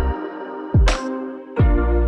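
Electronic background music with a deep, falling bass and a sharp snare-like hit about a second in. The bass drops out briefly and comes back near the end.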